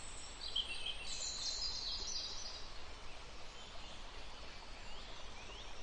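Faint outdoor background noise with birds chirping and trilling high, strongest in the first half and with a few short rising chirps near the end. No latch click or slam stands out.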